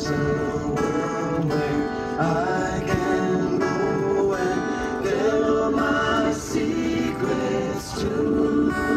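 Country-style music with plucked string instruments playing a steady tune.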